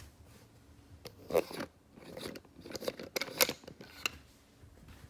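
Camera handling noise as the camera is picked up and moved: a run of clicks, rubs and knocks between about one and four seconds in, with the sharpest knocks near the start of the run and about three and a half seconds in.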